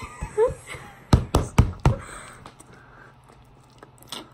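Four sharp knocks or taps close to the microphone in quick succession a little over a second in, with a fainter knock near the end.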